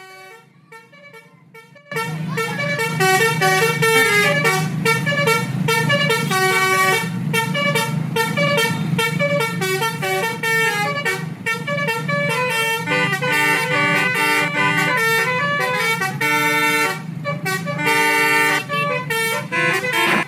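Basuri musical horn, the multi-tone melody horn of Indonesian buses and trucks, simulated by a phone app and playing a tune in quick short notes over a steady low hum. It starts quietly and becomes loud about two seconds in.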